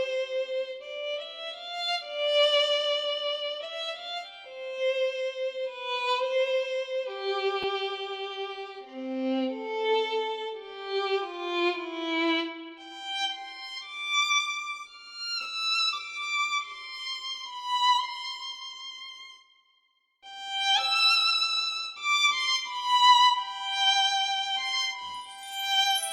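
Violin playing a slow, lyrical melody with vibrato, one note at a time. It stops for about a second some twenty seconds in, then carries on.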